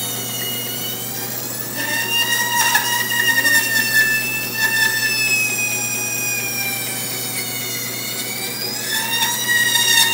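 Bandsaw cutting knotty wood: a steady high whine whose pitch sags and recovers as the blade is loaded, then cuts off suddenly at the end. The knots in the board are slowing the cut.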